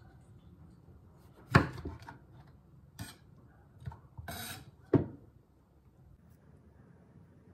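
Dishes and cutlery knocking: three sharp clinks, about a second and a half, three and five seconds in, with a short scrape just before the last one.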